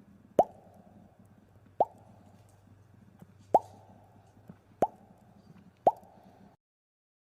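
Bubbles popping: five short, bright 'bloop' pops, each sliding quickly up in pitch, spaced irregularly about a second or so apart, then the sound stops.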